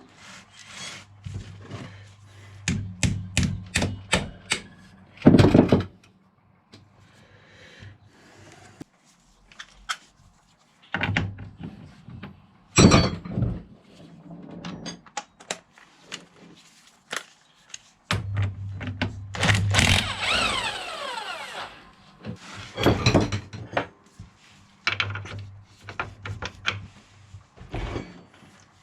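Hand tools working on an ATV's front suspension and axle hardware: irregular bursts of metal clicks, knocks and clanks, with a few louder single strikes.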